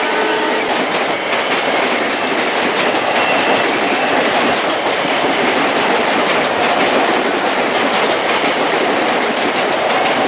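Long Island Rail Road Bombardier M7 electric commuter train passing close by, its wheels on the rails making a steady loud rumble. The tail of its horn is still sounding for the first half-second.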